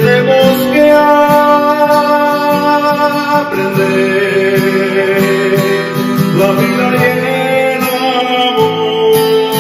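A man singing a slow Spanish-language ballad in long held notes, accompanying himself on a strummed acoustic guitar.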